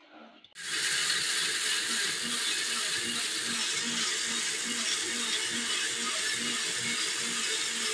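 Electric mixer grinder switched on about half a second in and running steadily, grinding fried tomato, onion, ginger and chilli into a paste, with a regular pulse about twice a second.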